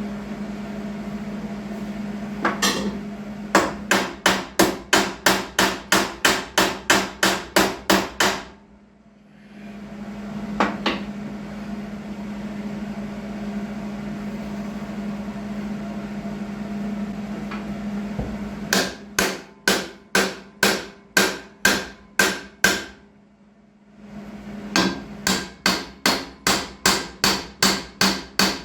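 Hammer striking the steel lawnmower deck in steady runs of blows, about three a second, each with a brief metallic ring, beating the bent section of the deck back into place. A steady hum runs underneath and drops out twice.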